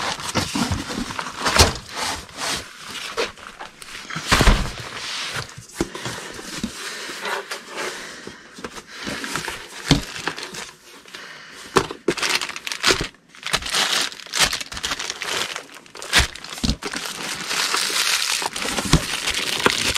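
Rummaging through a cardboard box packed with coiled telephone cords and plastic bags: continuous rustling and crinkling, broken by scattered sharp knocks and clunks.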